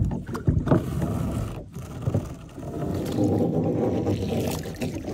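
Anchor rope being paid out over the side of a kayak: a few knocks and handling bumps, then about two seconds of steady rubbing as the line runs out.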